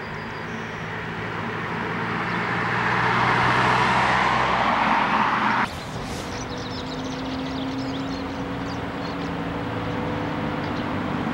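A Mercedes-Benz sedan driving toward and past, its engine and tyre noise swelling to a peak about five seconds in. It cuts off abruptly and gives way to a Komatsu tracked excavator's diesel engine running steadily with a low hum.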